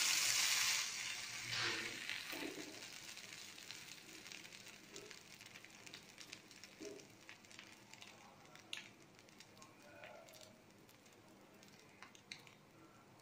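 Buttered bread slices sizzling on a hot flat tawa: a loud burst of sizzling as a slice is turned onto the pan, fading over a few seconds into a quieter steady sizzle with scattered small crackles and clicks.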